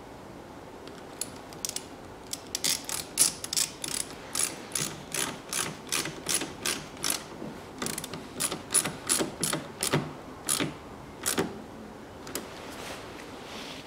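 Screwdriver tightening a hose clamp on a car's coolant expansion tank pipe, making runs of sharp ratcheting clicks, about two to three a second, which stop near the end.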